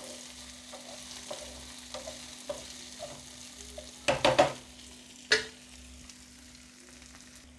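Wooden spatula stirring chopped onion, tomato and cashews frying in a nonstick pan, with soft regular taps over a faint steady sizzle and a few louder strokes about four to five seconds in.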